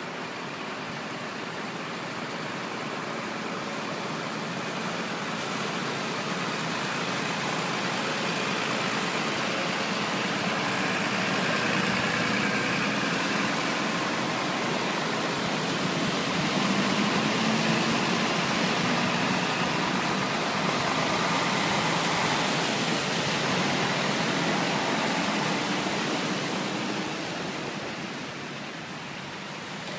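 Lorries and a van driving one after another through floodwater across a road, engines running and tyres throwing up spray, over the rush of water flowing across the road. It builds as the vehicles come close, is loudest in the middle and eases off near the end.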